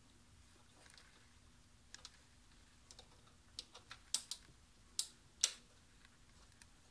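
Small brake parts (pads, spring, pin, caliper) being handled: a scatter of sharp clicks and taps, a few light ones, then a quick cluster, with the two loudest about five seconds in.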